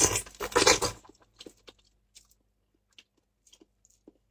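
Close-miked eating: a loud noisy bite into a mouthful of avocado in the first second, then faint scattered chewing clicks.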